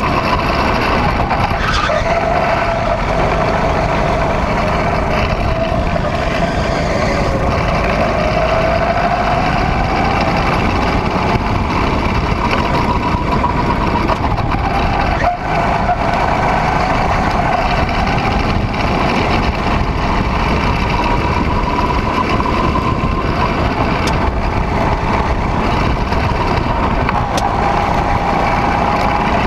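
Go-kart engine running under load on a moving kart, its pitch rising and falling as the driver accelerates out of corners and lifts into them, with a brief dip about halfway through.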